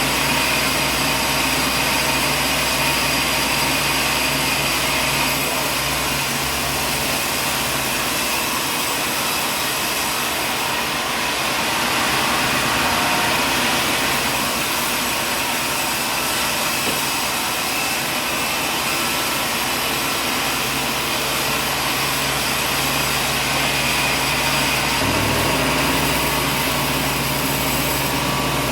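Sawmill machinery running steadily: a continuous mechanical drone with a constant hum.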